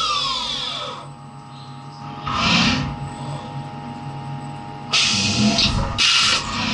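CNC vertical mini milling machine working aluminium. Its spindle whine falls in pitch as it slows in the first second, then a quieter steady machine hum runs with two short bursts of hiss, about two and a half and five seconds in.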